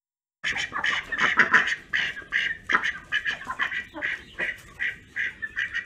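A rapid, irregular run of duck-like quacking, several quacks a second, starting abruptly after a brief dead silence.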